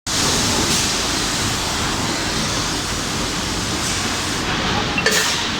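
Steady machinery noise of an induction-heating and forging line, with one short metallic clank that rings briefly about five seconds in.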